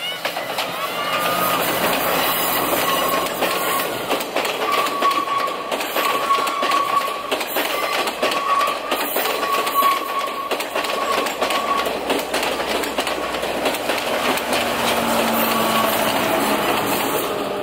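Sri Lanka Railways Class S12 diesel multiple unit passing close by, its wheels clattering over the rail joints. A high steady squeal runs through the first two-thirds, and a lower diesel engine hum comes in near the end as the rear power car goes past.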